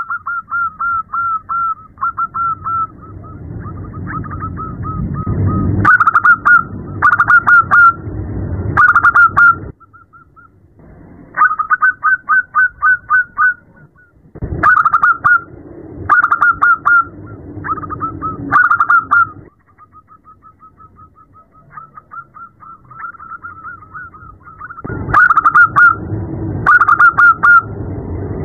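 Zebra dove (perkutut) cooing, presented as a female calling a male: soft, fast strings of short notes alternate with louder clipped phrases of three or four notes, over a low background rumble.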